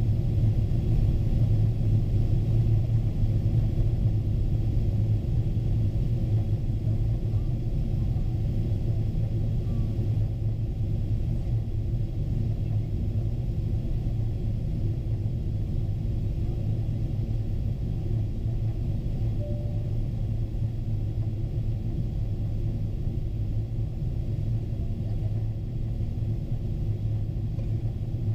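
Steady low rumble inside the cabin of a Boeing 777-200 in flight on its descent: engine and airflow noise, easing slightly in level after the first few seconds.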